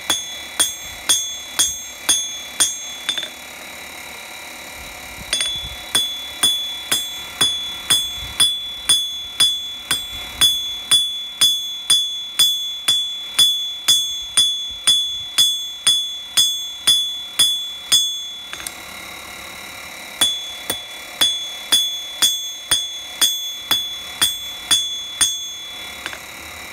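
Hand hammer striking a hot iron bar on a steel anvil, about two blows a second, each with a bright ringing from the anvil. The blows come in three runs, with short pauses about three seconds in and again about eighteen seconds in.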